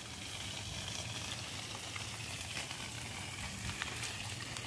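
Steady hiss of water running from a garden hose, with a low rumble underneath and a few faint clicks.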